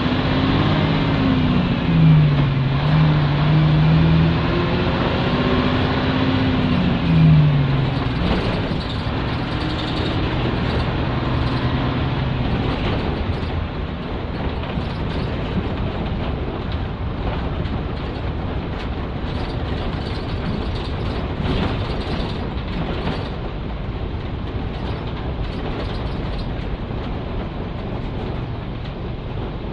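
Nissan Diesel K-U31L bus's PE6H diesel engine heard from inside the cabin, pulling through its manual gearbox: the engine note rises and drops in steps at the gear changes in the first eight seconds. After that the engine tone fades into steady road rumble with scattered rattles as the bus runs on.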